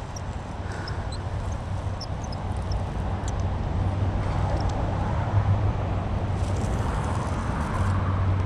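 Steady traffic noise from a major highway, a low rumble that slowly builds in level.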